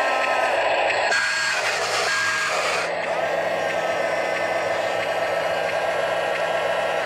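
Radio-controlled Huina wheel loader reversing, its sound unit giving two short reversing beeps about a second apart over a steady mechanical hum.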